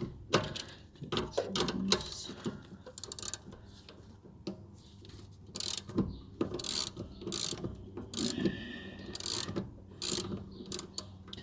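A ratchet wrench clicking in short, irregular bursts with metal clinks as a front sway bar link nut is worked.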